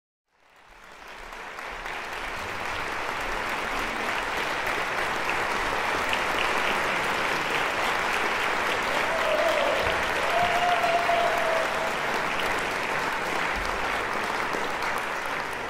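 Concert audience applauding, the sound fading in over the first second or two. A short held tone sounds above the clapping just past the middle.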